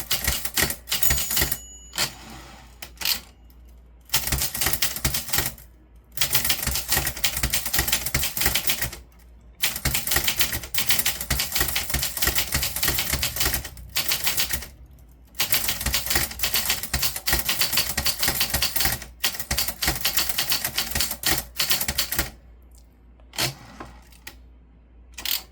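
Typewriter keys being struck in fast runs of typing, broken by short pauses of about a second, with only a few single strokes near the end.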